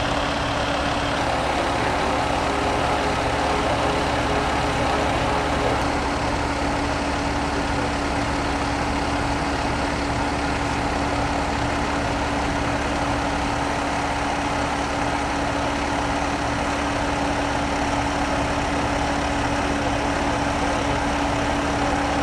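Fire engine's diesel engine idling steadily, with a constant hum over the running.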